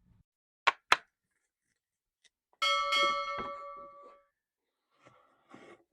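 Two sharp clicks, then a single metallic clang that rings on with a clear bell-like tone, fading over about a second and a half, followed by a few faint knocks.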